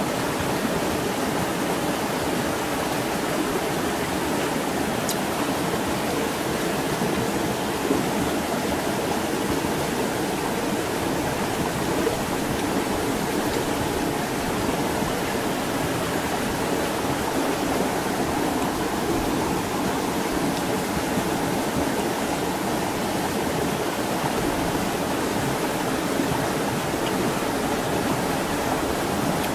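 Steady rushing of flowing stream water, even and unbroken throughout.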